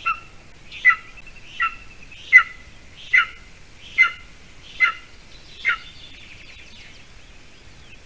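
Golden eagle chick calling: eight short, high calls at a steady pace, a little more than one a second, each dropping in pitch.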